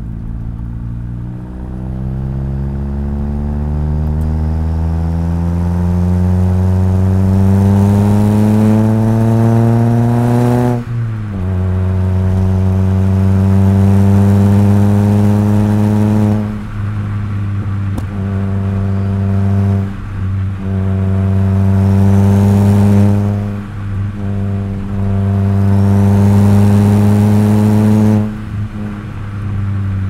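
Mitsubishi Colt CZT's 1.5-litre turbocharged four-cylinder engine and exhaust pulling under load: the note climbs steadily in pitch for about ten seconds, drops sharply at a gear change, then holds a steady pitch with several brief lifts off the throttle before easing off near the end.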